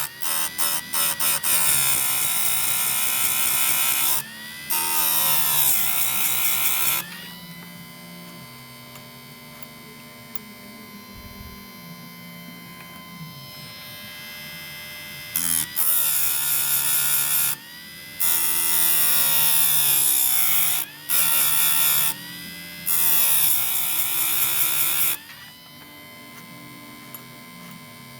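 Electric chainsaw-chain grinder with its motor running steadily, broken by about six loud, harsh stretches as the grinding wheel is brought down onto the chain teeth. Each stretch lasts one to three seconds, and the motor's pitch dips briefly as the wheel bites the steel.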